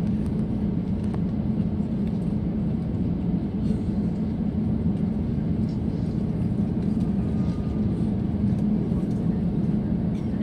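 Steady low cabin rumble of an Airbus A350-900 taxiing slowly, its Rolls-Royce Trent XWB engines running at idle and heard through the fuselage from a seat over the wing.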